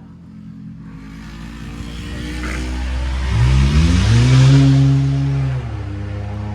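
A motor vehicle driving past: its tyre and engine noise swells, the engine revs up with a rising pitch about three and a half seconds in, holds, then drops away shortly before the end.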